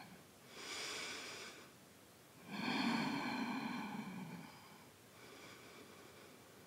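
A woman breathing audibly with effort while holding a one-legged balance and pulsing the lifted leg: an airy breath about half a second in, then a longer, louder voiced breath out about two and a half seconds in, and a fainter one near the end.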